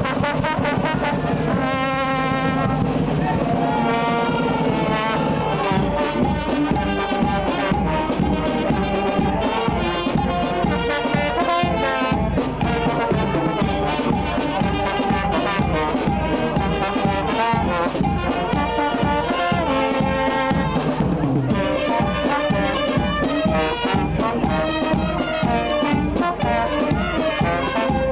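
A banda, a festive brass band of sousaphone, saxophones and trumpets, playing a dance tune with a steady beat.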